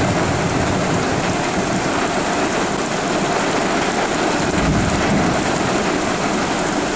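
Heavy rain pouring down in a steady hiss, with a short low rumble about two-thirds of the way through.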